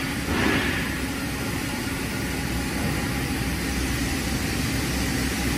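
Steady mechanical hum of a running CNC lathe and workshop machinery, with a brief hiss about half a second in.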